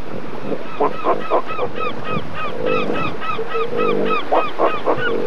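A bird calling a fast series of repeated harsh notes, about five a second. A lower, pulsed animal call sounds twice underneath, about midway and again a second later.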